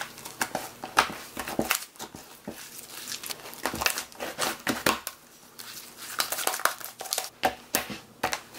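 Hands kneading and stretching clear slime mixed with water-soaked instant snow: a run of irregular crackles and sticky clicks as the slime is pressed and pulled apart.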